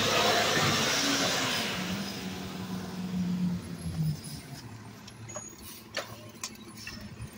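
Recycling truck's diesel engine running as the truck passes close by and pulls away. A loud rushing noise fills the first two seconds, then a steady engine note that fades out about four seconds in, leaving a few faint clicks.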